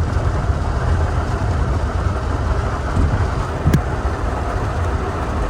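Steady low rumble of a car heard from inside the cabin during a heavy rainstorm, with the hiss of rain and water, and a single sharp click a little over halfway through.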